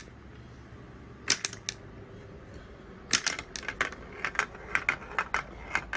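Plastic Mouse Trap board-game contraption set going: a few single sharp clicks, then from about three seconds in a quick run of clicks as the small ball rattles along the plastic track.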